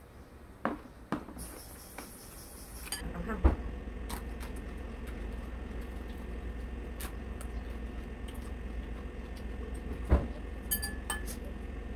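Metal chopsticks tapping and clinking against a ceramic noodle bowl: a handful of separate clicks, with a brief high clink near the end, over a low steady hum.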